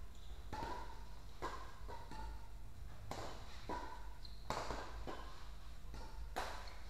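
Badminton rackets striking a feather shuttlecock during a doubles rally: a string of sharp hits, roughly one every second, each ringing briefly in the hall.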